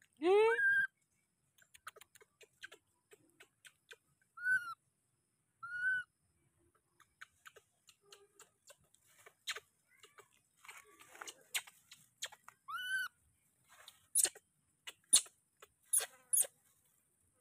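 Baby macaque giving high, arching coo calls: a loud one right at the start, then three shorter ones spread through the rest. Between the calls are rustling and crackling of leaves and grass as it clambers through the undergrowth, with the sharpest crackles near the end.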